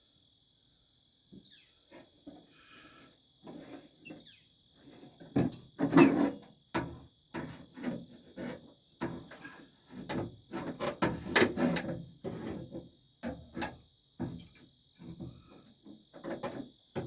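Irregular metal knocks, clanks and scrapes as a stubborn door handle is worked and pried off the worn splined shaft inside an old pickup truck's steel door. The sounds start about a second in, with the loudest knocks about six seconds in and again near the eleven-second mark.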